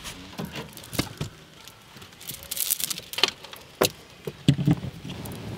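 Rustling of a nylon sleeping bag and bedding, with scattered light clicks and knocks from things being handled in a cramped space. The rustling is loudest about two and a half seconds in.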